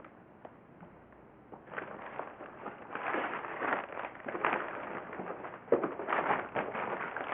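Rustling and handling noises of packaging being pulled open and sorted, starting about a second and a half in and going on in irregular scrapes and crinkles.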